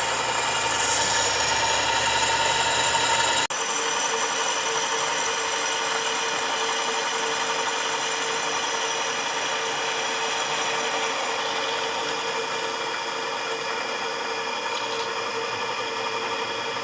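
Helmo bench drill press's single-phase electric motor and belt drive running steadily. The sound changes abruptly about three and a half seconds in, losing its low rumble, then goes on as an even machine hum.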